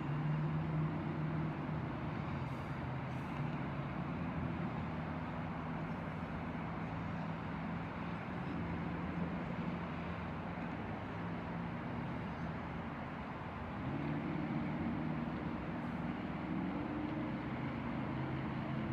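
A train running, with a steady hum of several tones over a wash of rolling noise; the hum rises in pitch and gets louder about 14 seconds in.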